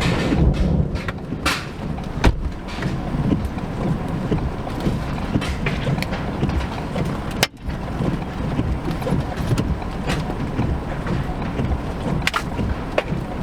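Vehicle driving with a steady low rumble and wind noise, with scattered sharp knocks or ticks throughout and a brief drop in sound about seven and a half seconds in.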